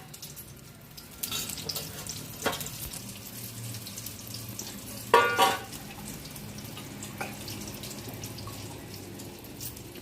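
Kitchen cooking sounds: a steady hiss with a few clinks of metal utensils, the loudest about five seconds in.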